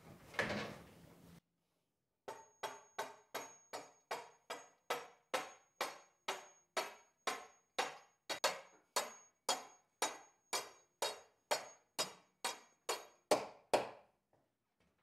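Hammer blows driving a threaded metal bar up through drilled holes in a timber roof beam, struck steadily at a little over two a second with a faint high metallic ring. The strikes start about two seconds in, grow somewhat louder toward the end and stop about a second before the end.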